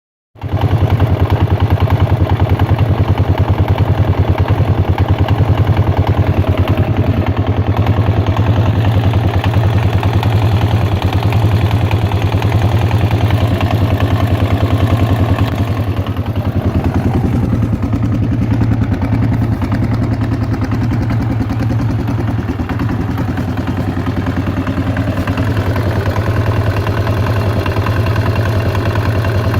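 Yamaha XT 600 E single-cylinder four-stroke engine idling steadily with an even beat, carrying a strange noise whose origin the owner cannot place. It settles slightly quieter about halfway through.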